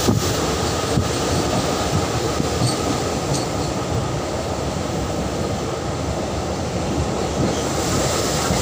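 Passenger train running steadily, with the rumble and rattle of the carriage and occasional light knocks from the wheels, heard from inside the carriage through an open window.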